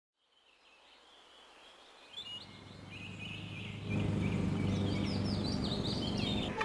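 Birds chirping, with a low steady hum that comes in about two seconds in and grows louder about four seconds in.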